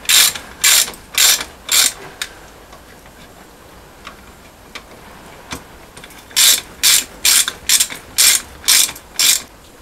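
Ratchet wrench snugging down the flywheel bolts on a diesel's crankshaft flange, with quick swings of clicking about two a second. Four strokes come at first, then a pause, then about seven more near the end.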